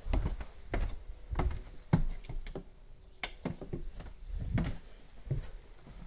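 Footsteps walking down the last carpeted stairs and across a carpeted floor: a string of soft, irregular thumps.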